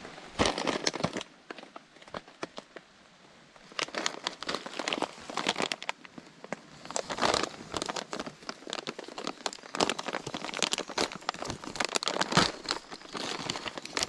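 A foil freeze-dried meal pouch being handled, crinkling and crackling in irregular bursts, with a quieter pause about two seconds in.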